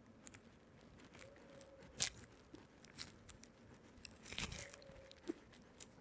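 Faint handling noises of hands working cables and a metal rod on a small assembly: scattered light clicks and taps, a sharp click about two seconds in, and a louder cluster of rustling clicks around four and a half seconds. There are two faint brief squeaks, one just after a second in and one just after the cluster.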